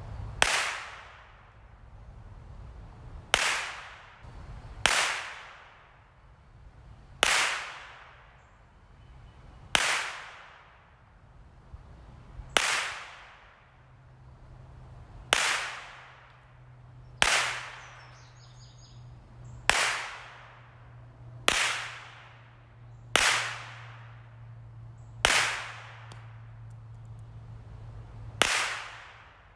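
Marlin Model 60 semi-automatic .22 LR rifle firing thirteen single shots at an uneven pace, about one every two seconds, each crack followed by a short echo off the woods.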